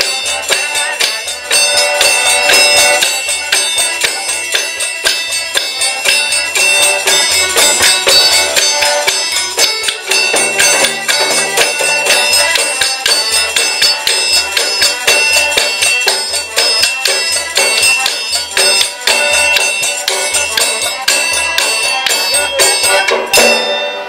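A Rodrigues folk band playing: accordion with a large frame drum and small hand percussion keeping a steady, quick beat. The music stops just before the end.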